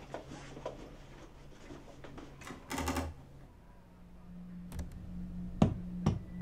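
A small red rubber ball bouncing on carpet: two sharp thuds about half a second apart near the end, the first the louder. They sound over a low steady drone that swells in the second half, with faint scattered clicks and a brief rattle before it.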